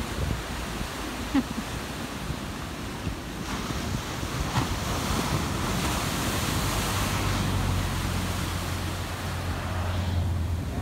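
Ocean surf breaking and washing toward shore, with wind buffeting the microphone in a low rumble.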